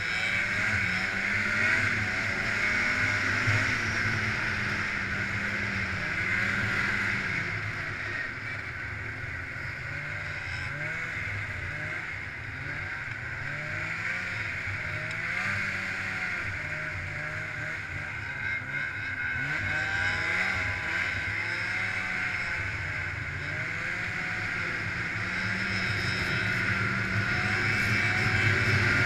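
Snowmobile engine running, heard from the rider's seat as the sled travels along a trail. Its pitch rises and falls again and again as the throttle opens and eases, over a steady hiss.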